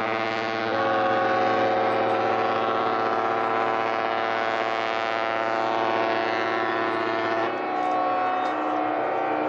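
Background music of sustained chords, the chord changing about a second in and again near the end.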